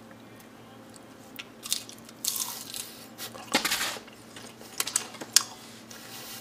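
Fried chicken being bitten and chewed close to the microphone: irregular crunching in a few short bursts, the two loudest about two and three and a half seconds in, with several sharp clicks between them.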